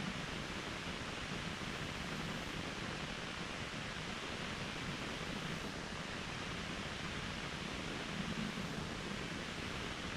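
Mountain waterfall: falling water making a steady, even rush of noise that does not change.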